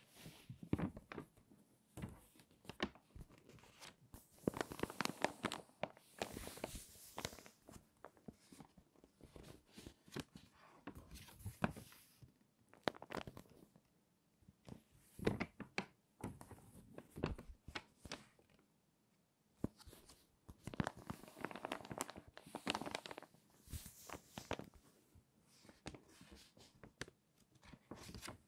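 Water-damaged magazine pages, stiff and crinkly, being handled and turned by hand, crackling and rustling in irregular bursts with short quiet gaps.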